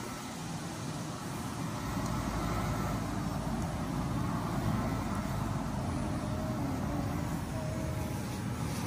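Corded electric dog clippers running steadily, their motor humming as they cut through a dog's long, shaggy coat; the low hum grows fuller about two seconds in.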